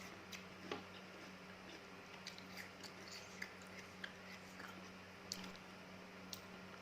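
Close-miked chewing and biting of crunchy raw fruit: an irregular scatter of sharp, wet crunches and clicks, with the sharpest near the start and again just past five seconds, over a faint steady hum.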